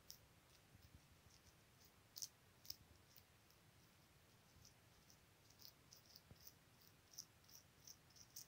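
Guinea pig chewing salad greens: faint, crisp little clicks and crunches, irregular at first, then coming in a quicker run in the second half.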